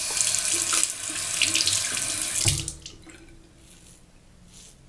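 Bathroom sink tap running into the basin, shut off after about two and a half seconds.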